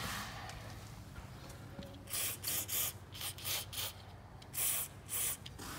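Aerosol can of penetrating spray hissing in about six short squirts, starting about two seconds in, sprayed through its straw onto a tight brake caliper bolt.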